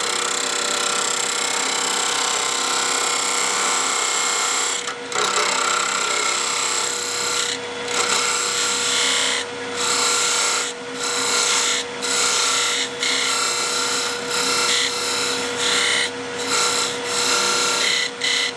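Detail gouge cutting the end of a wooden handle spinning on a wood lathe: a steady hiss of the cut over the lathe's hum. From about five seconds in, the cut breaks off for a moment about once a second as the tool is lifted and set back in for light sizing cuts.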